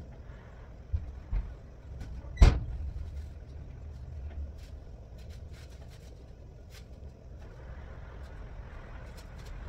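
Two knocks, then one loud bang about two and a half seconds in with a short ring after it, over a low steady rumble.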